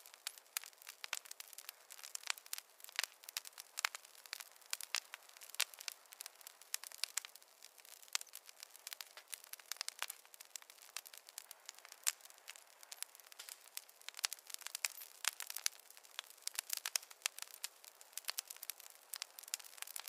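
Wood campfire crackling: a steady run of irregular sharp pops and snaps over a faint hiss of burning.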